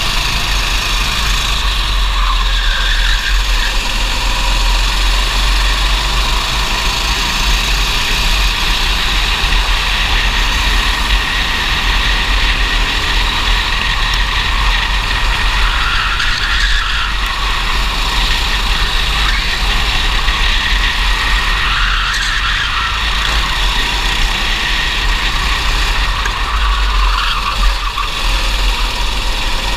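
Kart engine running flat out at racing speed, recorded onboard, with other karts' engines close by. The engine note shifts in pitch a few times along the way over a constant low rumble.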